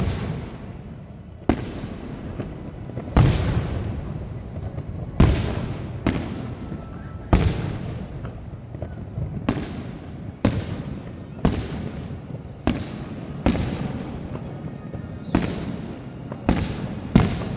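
Aerial fireworks shells bursting in a steady string, about one bang a second, each bang sharp and trailing off in an echoing tail.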